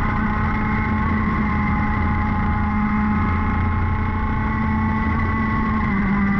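Racing kart engine running hard at high, near-steady revs, its pitch dipping slightly in the middle, with wind and tyre noise on the onboard camera.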